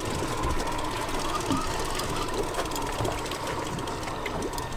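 Mercury outboard motor idling, with wind and water noise around the boat.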